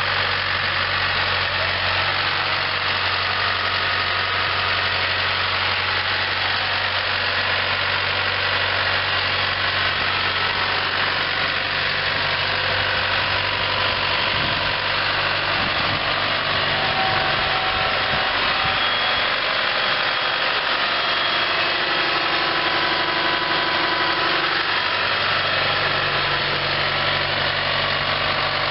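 Case New Holland four-cylinder diesel engine of a New Holland TS100A Plus tractor running steadily. Its low hum fades through the middle stretch and comes back near the end.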